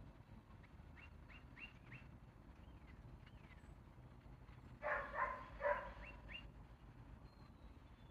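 Three short, high-pitched animal calls in quick succession about five seconds in, after a few faint quick chirps earlier on.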